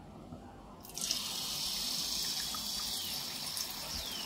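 Neyyappam batter poured from a ladle into hot ghee in a deep wok: a sudden sizzle starts about a second in and settles into a steady frying hiss as the batter cooks.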